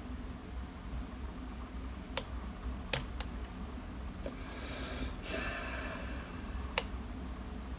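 Lock pick and tension wrench working the pins of a 5-pin Interlock-based pin tumbler lock: a few sharp, separate metallic clicks, with a short rush of noise about five seconds in.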